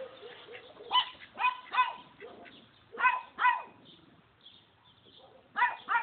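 Short, loud animal calls in three quick groups, seven in all: three about a second in, two at about three seconds, two near the end.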